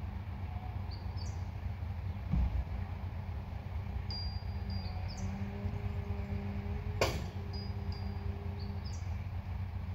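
Truck-mounted hydraulic crane running as it lifts a scrapped van: a steady low engine hum with a faint whine that grows louder midway as the load rises. There is a dull thud about two seconds in and a sharp clank about seven seconds in. Short high chirps repeat over it.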